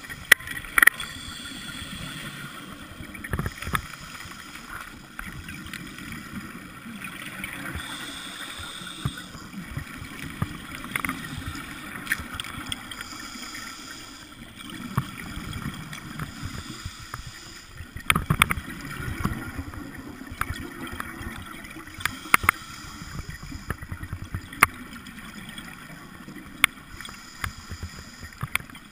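Underwater sound heard through a camera's waterproof housing on a dive: a steady muffled low rushing of water, broken by sharp clicks and knocks every second or few.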